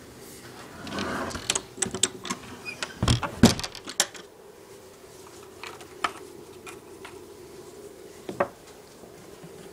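Handling noise from a camera being moved around: a flurry of clicks and knocks about a second in, building to one louder thump around three seconds in, then a few scattered clicks, over a faint steady hum.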